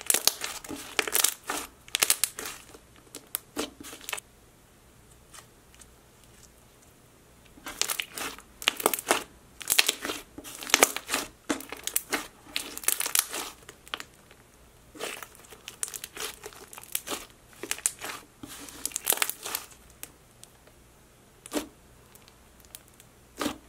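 Thick, stretchy slime being squeezed, kneaded and pressed by hand, giving runs of sticky clicks and crackles. The clicks pause for a few seconds about four seconds in, then come thickly again, and only a few lone clicks follow near the end.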